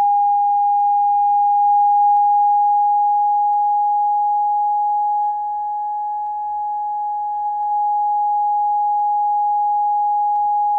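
A loud, steady pure tone from a signal generator driving a speaker into an open-ended resonance tube, held at about 828 Hz. Its loudness dips about five seconds in and comes back up near eight seconds as the frequency is nudged on and off the tube's resonance. This resonance is the fifth harmonic of the open tube.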